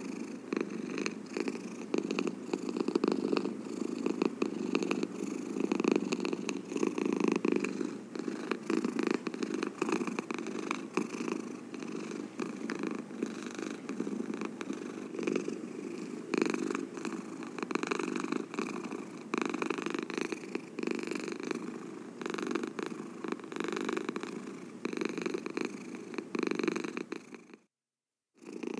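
A domestic cat purring steadily, a fast rhythmic pulsing that runs on without a break. Near the end it cuts out to silence for under a second, then resumes.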